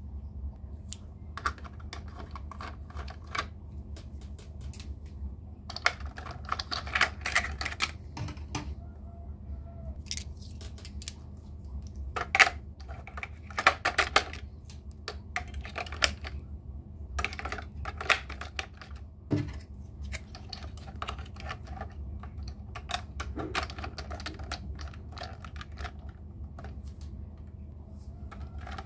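Irregular light clicks and clatter of toy trains and track pieces being handled, in scattered clusters over a steady low hum.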